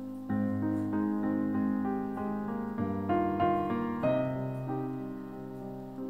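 Gentle piano music: single notes and chords struck and left to ring, with new notes entering about every second.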